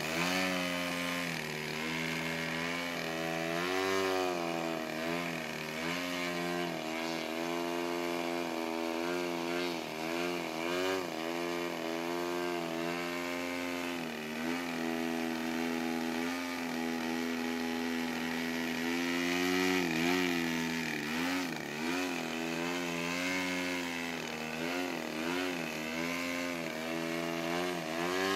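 RC aerobatic plane's two-stroke gas engine and propeller in a nose-up prop-hang hover. The engine pitch rises and falls constantly as the throttle is worked to hold the plane in the hover.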